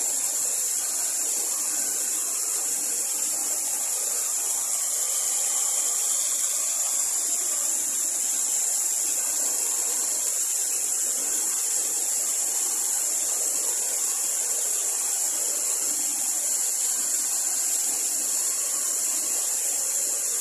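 Rushing water of a waterfall: a steady high hiss that does not change.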